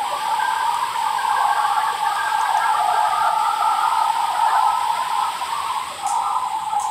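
Playback of an overnight outdoor phone recording: a steady hiss with a dense band of rushing noise in the middle. The owner hears in it a woman saying 'oh God, help me'.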